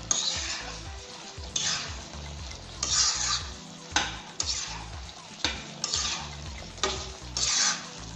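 A spatula stirring thick chicken gravy in a kadai, the sizzle swelling with each stroke about once a second, with sharp clicks of the spatula against the pan. The masala gravy is being fried down on the heat.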